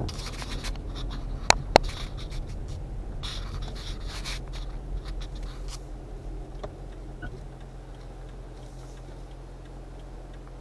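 Car cabin on a wet road: a steady low engine and road hum with stretches of hiss, and two sharp clicks a quarter second apart about a second and a half in. The sound grows quieter as the car slows to a stop.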